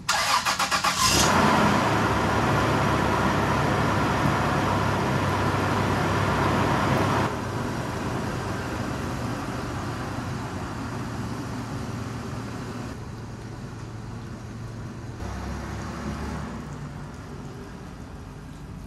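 2001 Toyota 4Runner's 3.4-litre V6 cranking for about a second, catching, and running at a fast idle. About seven seconds in it drops lower, then fades as the truck pulls away.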